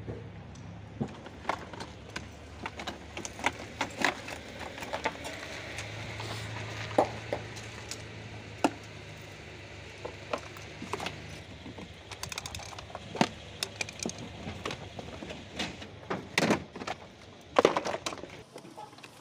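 Hard plastic body panels of a children's ride-on Ford Ranger toy car being handled and knocked against each other and the paving: a string of sharp clicks and knocks, the loudest near the end, over a low steady hum in the first part.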